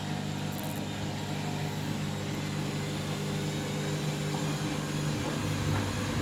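Washing machine drum in its final high-speed spin, the motor and drum giving a steady hum with rumble over a wash of noise; the load is out of balance.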